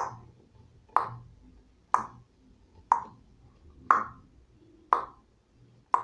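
Metronome app clicking a steady beat, about one click a second (around 60 bpm), each click short and sharp.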